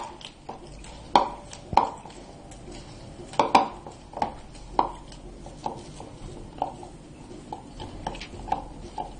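Wheat-flour dough being kneaded by hand in a bowl, oil just worked in: a string of soft knocks and thuds as the dough is pressed and pushed against the bowl, about one or two a second, louder in the first few seconds.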